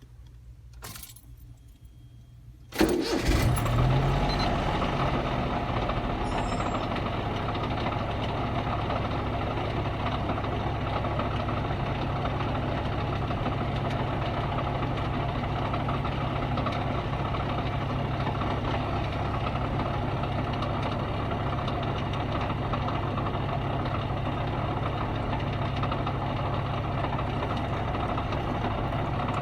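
Honda Beat's 656 cc three-cylinder engine starting about three seconds in, after a click, then idling steadily. Over the idle comes an irregular rattling clatter from the distributor, whose internal ball bearing has rusted and failed.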